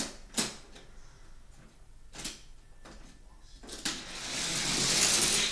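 A few light clicks, then from about four seconds in a rising, hissing rolling noise that grows louder toward the end: a Hot Wheels die-cast vehicle's wheels speeding down a plastic track.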